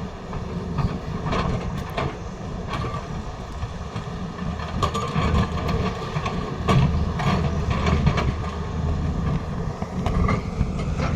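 Excavator's diesel engine running steadily, with irregular metallic clanks and knocks from the working machine.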